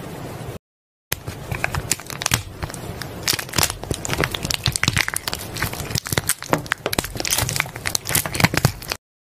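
Slime being squeezed and pressed by hand, giving a dense run of crackling clicks and pops, broken by a brief cut to silence about half a second in.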